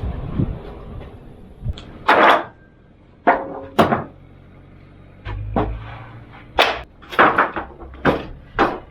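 Sawn red pine boards being handled, giving about a dozen sharp, irregular wooden knocks and clatters. A low rumble fades out in the first second.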